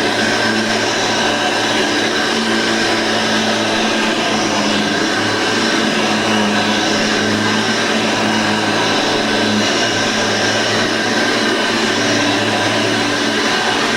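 Pink Hoover Elite 350 upright vacuum cleaner with a cloth bag, made around 1988–1990, running steadily with an even motor hum and rush of air.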